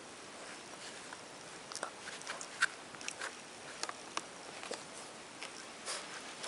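Basset hound puppy gnawing a rawhide chew bone: irregular short clicks and crunches of teeth on the rawhide.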